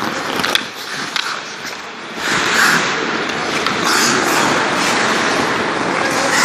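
Hockey skate blades scraping across the ice, with two sharp clicks early on and then from about two seconds in a steady, loud scraping that swells roughly once a second.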